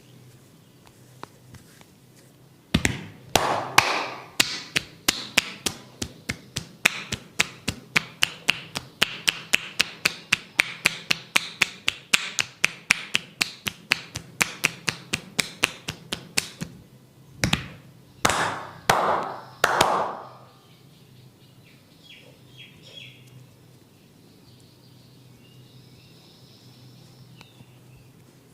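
A barber's hands tapping rapidly and evenly on a head during an Indian head massage, about four strikes a second. A few broader strikes come near the end.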